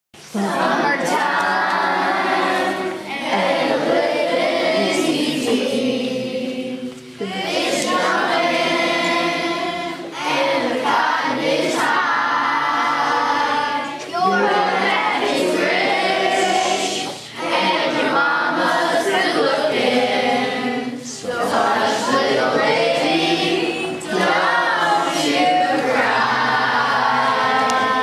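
A choir singing together, in phrases of a few seconds each with short breaths between them.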